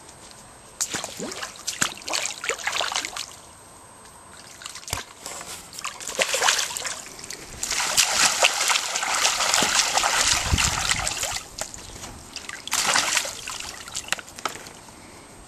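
A toddler splashing and sloshing through the water of an inflatable paddling pool, in irregular bursts, the longest and loudest stretch about eight to eleven seconds in.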